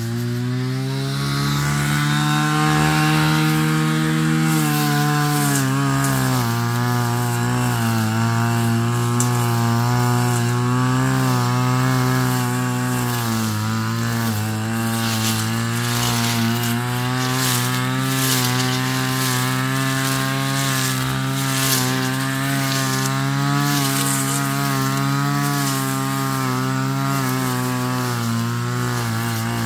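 Backpack brush cutter's small engine running at high revs while cutting dense grass and weeds. The pitch wavers and sags briefly about six and thirteen seconds in as the blade takes load, over a crackle of stems being struck.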